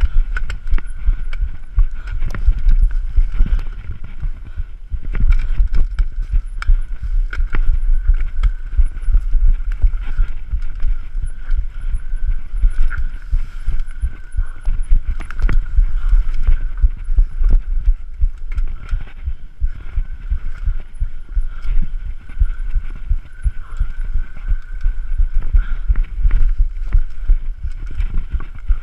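Mountain bike descending a rough, rocky trail: a constant rattle and clatter of the bike over stones and roots, under heavy wind rumble on the microphone. A faint, steady high whine runs underneath.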